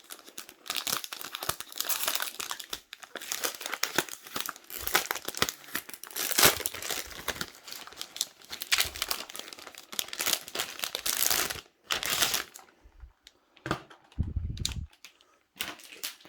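Plastic wrapping crinkling and rustling as it is handled and pulled off a new keyboard, dense for most of the time and then sparser, with a short low thump near the end.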